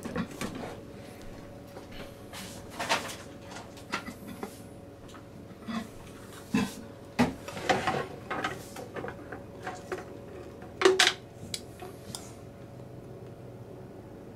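Kitchen clatter: scattered knocks and clinks of pots, dishes and utensils being handled and set down, the loudest a little before the end, over a faint steady hum.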